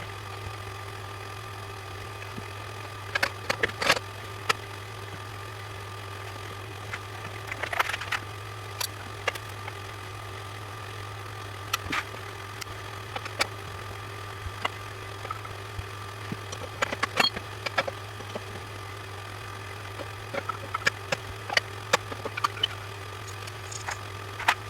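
Steady low machine hum with scattered clicks and light knocks.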